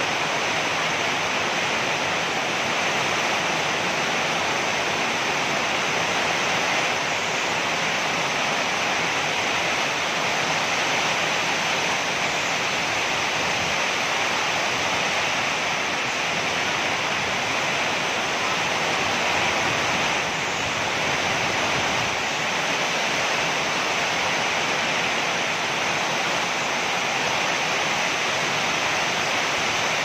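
Heavy rain pouring down in a steady, even rush.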